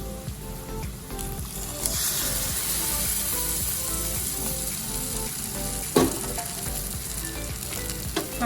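Butter, maida and milk sizzling in a hot kadai as it is stirred. The sizzle grows louder about two seconds in, and a spoon knocks sharply against the pan about six seconds in. Soft background music plays underneath.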